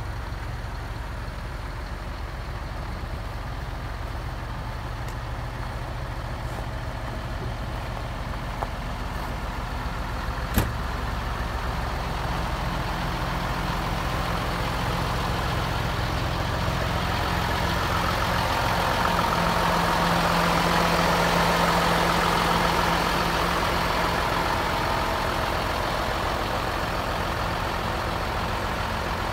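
Scania LA 82 military hook-lift truck's diesel engine idling steadily, growing louder and brighter through the middle and easing off near the end. A single sharp click about ten seconds in.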